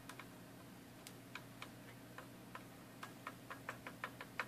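Light metallic clicks of a soldering iron tip working against a metal battery-terminal clip on a circuit board while its solder is melted. The clicks are sparse at first and come faster and louder toward the end, about four a second.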